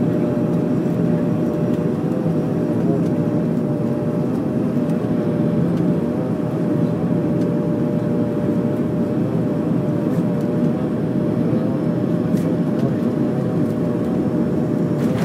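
Bombardier Q400 turboprop engines and propellers heard from inside the cabin during landing and the roll down the runway: a steady, loud drone with a few held propeller tones that waver slightly.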